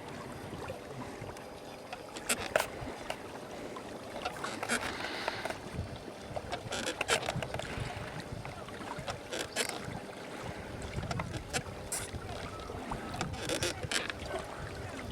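Water splashing and sloshing in irregular strokes, with steady background noise.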